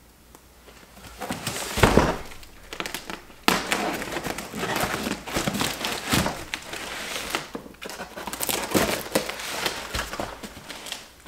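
A cardboard box being opened by hand, with irregular crinkling, scraping and rustling of the packaging and a loud knock about two seconds in.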